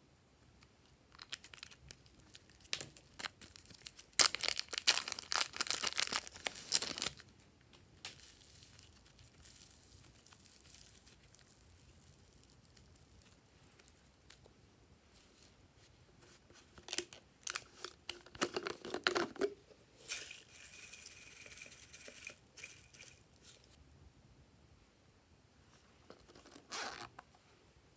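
Hands working glossy slime and its add-ins in plastic trays, making bursts of sticky crackling and crinkling. The longest and loudest burst comes about four to seven seconds in, with shorter ones later and near the end.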